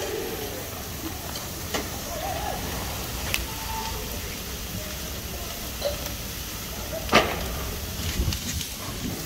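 Flames from a burning car and row of waste bins: a steady rushing crackle broken by several sharp cracks, the loudest about seven seconds in. Faint voices are heard in the background.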